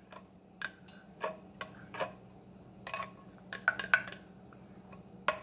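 Light clinks and knocks of a kitchen utensil against a cookware pot, scattered irregular clicks, some with a short ring, a few bunched together about three and a half seconds in.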